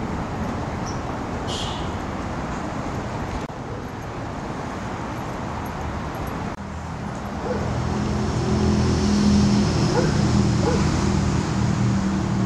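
Steady road traffic noise. About halfway through, a deeper, steady engine hum comes in and the overall sound grows louder.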